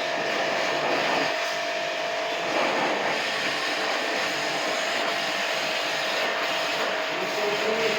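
Portable electric jet pump running steadily, its motor whine under a hiss of spraying water, as used to wash a window AC's coils.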